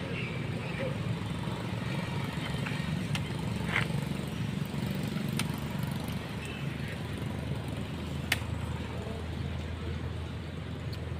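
Steady low engine-like rumble, with a few faint short chirps and one sharp click about eight seconds in.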